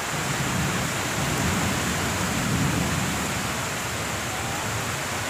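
Heavy storm rain pouring down on trees and foliage: a steady, dense hiss, with a low rumble swelling and fading over the first few seconds.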